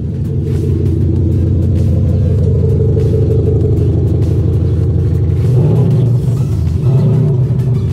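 Maxhaust electronic exhaust system's two speakers on a Mercedes-Benz ML W166 playing a synthesized engine rumble: a steady, deep, loud idle note that shifts in pitch briefly about six seconds in.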